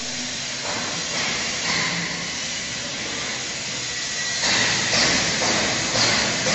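Factory hall ambience: a steady hiss, growing louder about four and a half seconds in.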